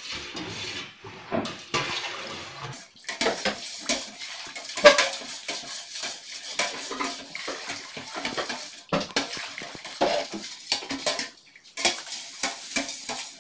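Metal spoon stirring a stainless steel pot of cooked bugnay berries and liquid, clinking and scraping irregularly against the pot's sides and bottom, with brief lulls about three seconds in and near the end. The berries are being mixed with dissolved brown sugar and yeast for wine.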